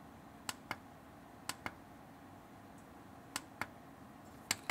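Clicking of a solar inverter's front-panel button, pressed and released four times in quick pairs of clicks, stepping the LCD through its readings.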